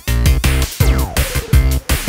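Background music with a heavy, regular beat and a falling swoop about a second in.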